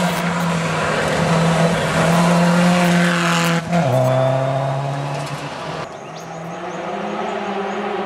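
Rally car on a gravel stage passing close at speed: its engine note grows louder on the approach, drops sharply in pitch as it goes by about four seconds in, then fades away.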